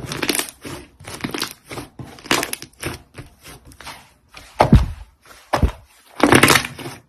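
Slime being squeezed and pressed by hand, giving a run of short crackling, squelching bursts, with two deep thuds near the middle.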